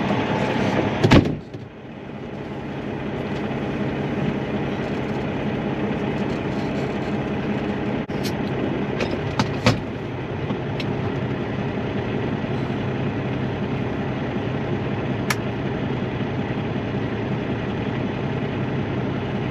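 A sharp knock about a second in, like a door shutting, then a truck's engine idling steadily, with a few light clicks.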